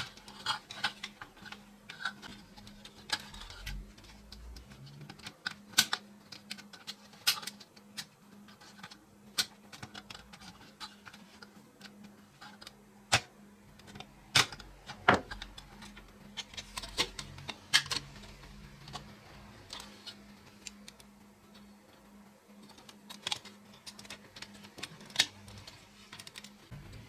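Irregular light clicks and taps of small hard parts being handled and set down, a few seconds apart, with one louder knock about fifteen seconds in.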